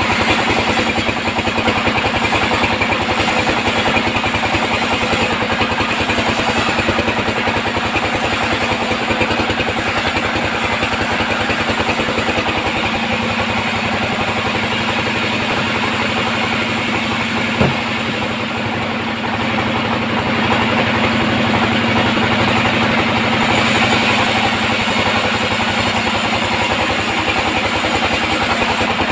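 Band sawmill running with a steady engine-like drone, a short click about two-thirds of the way through.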